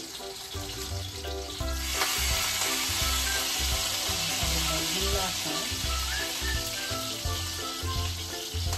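Steak frying in a pan, a steady sizzle that grows louder about two seconds in, with background music playing under it.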